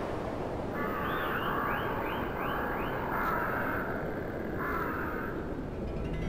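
Crows cawing in a quick run of calls starting about a second in, over a steady low windy rumble.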